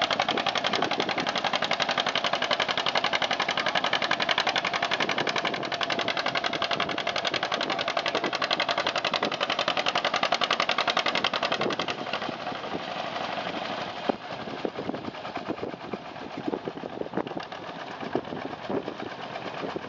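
John Deere two-cylinder tractor engine working hard under load while pulling a weight-transfer sled, with a fast, steady pulse of firing strokes. It gets quieter about twelve seconds in.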